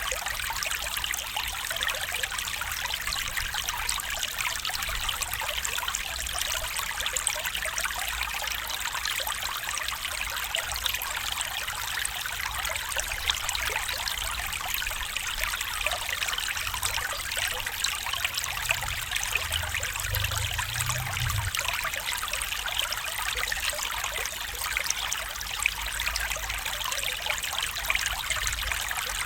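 A small stream flowing steadily over stones, with a constant trickling and splashing of water. A brief low rumble comes about two-thirds of the way in.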